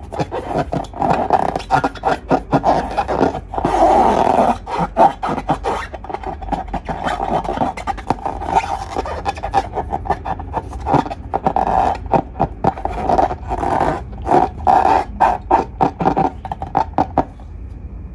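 Long rubber balloon squeaking and rasping as it is handled, in quick, uneven bursts that run almost without a break and stop shortly before the end.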